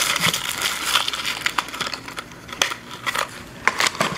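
Plastic packaging crinkling and rustling as it is handled, with several light clicks and taps in the second half.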